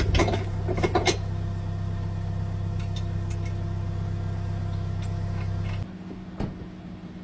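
A steady mechanical hum with a few metallic clanks in the first second, the hum cutting off sharply about six seconds in.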